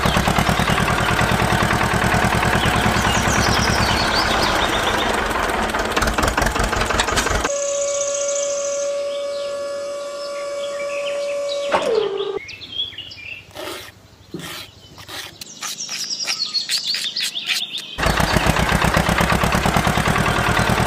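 A tractor engine sound runs with a fast low chug while birds chirp. About seven seconds in, the engine gives way to a steady whine that drops in pitch and stops, as the trailer bed tips. After a quieter stretch with a few knocks, the engine comes back near the end.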